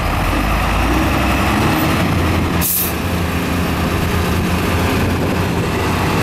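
Heavy diesel engines of a wheel loader and a Ural tanker truck running steadily under load as the loader tows the truck out of soft sand. A brief hiss of air comes about two and a half seconds in.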